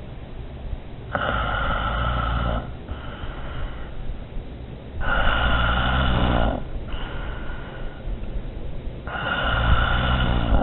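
Snoring: three long snores about four seconds apart, each followed by a shorter, fainter breath.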